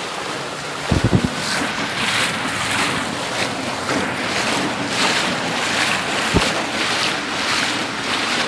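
Rushing floodwater and falling rain, a steady rush of water noise. Wind buffets the microphone in a few low thumps about a second in and once more later.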